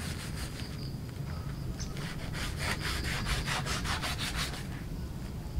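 Quick back-and-forth scraping strokes of a wooden rice paddle sawing at a black plastic plant polybag to split it open from the top. The strokes are sparse at first, then come fast, about five a second, until shortly before the end.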